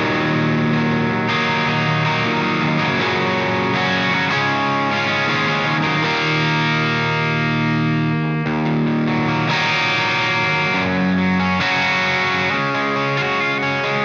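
Electric guitar played through an EVH 5150III LBX head, a small EL84-powered valve amp, with the gain at about 2 o'clock giving a crunchy, distorted tone. Sustained chords and notes are played without a break.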